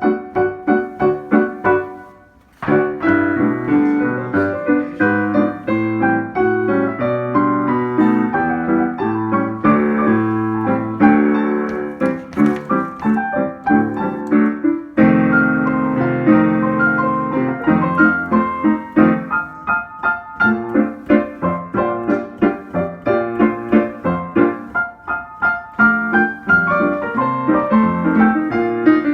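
Piano music: a lively tune played with steady, repeated note attacks, breaking off briefly about two seconds in and then coming straight back in.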